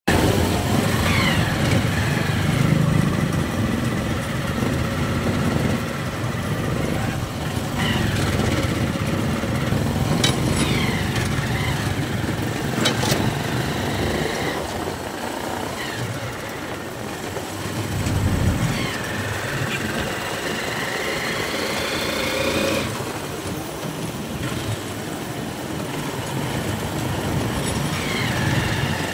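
Small motorcycle-type engine running with road noise while riding along a street, its whine rising and falling several times, with a couple of sharp clicks.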